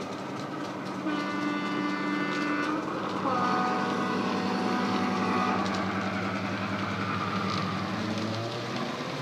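Model Deltic sound decoder with a Legomanbiffo sound file, through an EM2 speaker: the Deltic engine running steadily while the two-tone horn sounds, a higher note about a second in followed by a lower note.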